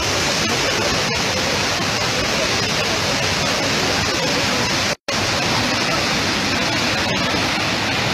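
Muddy floodwater rushing over a rocky waterfall, a loud, steady, continuous rush. The sound drops out for an instant about five seconds in.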